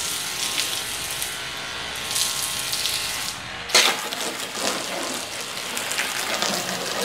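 Water jet from a 12 V portable pump sprayer hissing and splashing on a scooter's wet front fairing, with a faint steady hum from the pump. A sudden sharp sound about halfway through.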